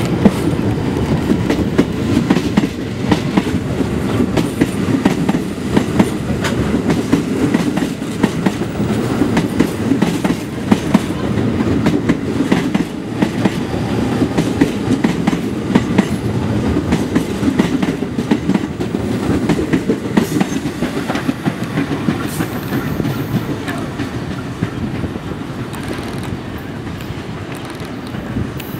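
New York City Subway train passing close by on elevated track: a steady rumble of steel wheels with irregular clatter as they cross rail joints, dying away over the last few seconds as the train pulls away.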